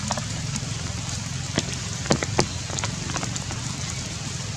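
Steady rain falling, with single drops now and then tapping close by as sharp clicks, a few of them louder about two seconds in.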